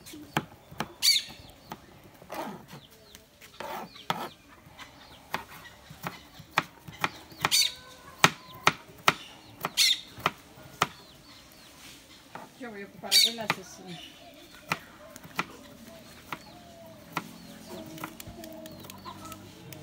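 Kitchen knife dicing radishes on a plastic cutting board: quick, irregular taps, with chickens clucking now and then.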